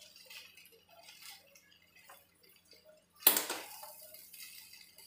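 Spatula stirring cooked rice pulao in a metal kadai: soft scrapes and taps, then one sharp clank of the spatula against the pan about three seconds in.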